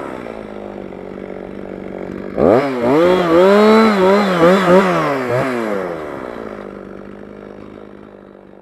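Jonsered 2045 Turbo two-stroke chainsaw idling, then revved hard about two and a half seconds in with its pitch swinging up and down for a few seconds before dropping back to a steady idle. It grows fainter toward the end.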